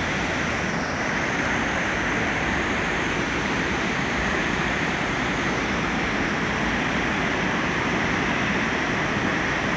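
Steady rushing roar of the Grand Falls, a large river waterfall on the Saint John River, running in high flow with heavy white water pouring over the drop.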